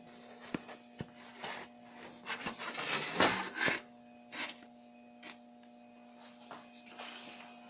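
Scattered clicks, then a few seconds of rubbing and scraping handling noise, over a steady low electrical-sounding hum.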